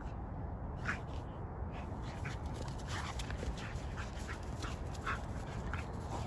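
Rottweiler giving short, repeated whimpers and yips in excited play, over a steady low rumble.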